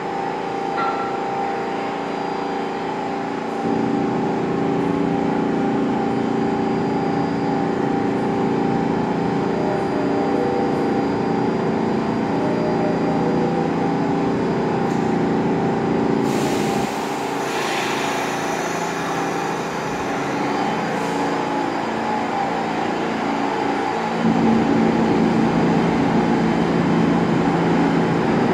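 R46 subway train standing in the station, its equipment giving a steady mechanical hum with several held tones. It gets louder a few seconds in, a short hiss of air sounds a little past halfway, and a stronger, deeper hum sets in near the end.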